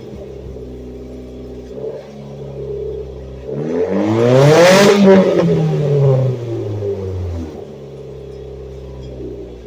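Can-Am Outlander ATV engine idling through an exhaust with a gutted catalytic converter, revved once about three and a half seconds in: the pitch rises, peaks loudest around the fifth second, and falls back to idle about four seconds later.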